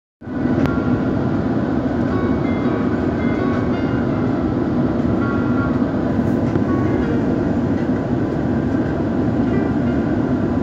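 Airbus A350 airliner landing: a steady rumbling roar that holds level throughout, with faint, brief high tones over it.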